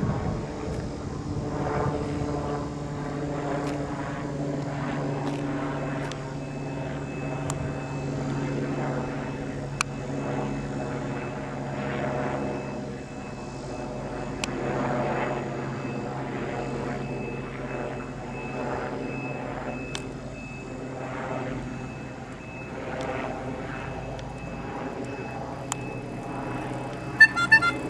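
A steady engine drone runs throughout, swelling and fading about once a second, with a thin high whine and a few sharp clicks.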